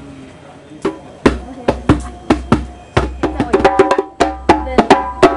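Live hand percussion, drum and wooden knocks: sharp strikes with short ringing tones, a few spaced hits at first, then quickening into a fast run of strikes about three seconds in.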